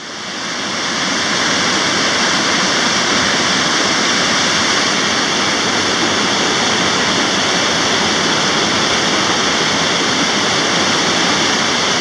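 Paulina Creek's white-water rapids rushing over rocks: a loud, steady rush of water that swells up over about the first second and then holds even.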